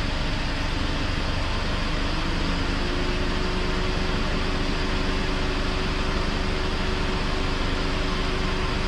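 Car idling with its air conditioning running: a steady mix of engine, compressor and fan noise, with a hum that rises a little and settles about two to three seconds in. The system is running for a vent-temperature and pressure check during a refrigerant charge.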